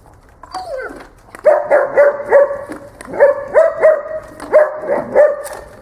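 A dog gives a short falling whine, then barks about nine times in quick groups. In this training it is the dog's bark indication of the helper.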